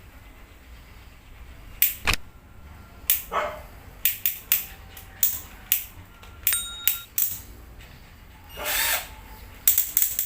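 About a dozen sharp clicks and knocks, irregularly spaced, as a 12 V cordless drill and its parts are handled, with a short rasping burst near the end.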